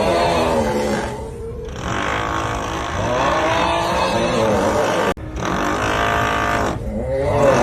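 The looped 'uuuuugh' snoring meme sound: a long, drawn-out groaning snore that wavers in pitch, heard about three times, over a steady drilling noise. The loop cuts off abruptly and restarts about five seconds in.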